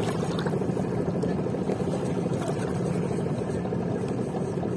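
Motorboat engine running steadily, a constant drone.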